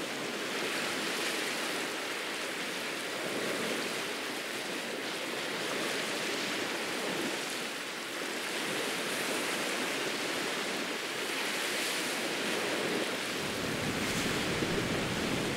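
Ocean surf breaking and washing up a sandy beach: a steady rush of waves that swells and eases gently every few seconds.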